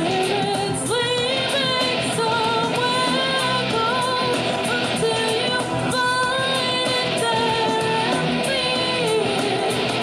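A woman singing karaoke into a microphone over a rock backing track with guitar, holding long notes with vibrato.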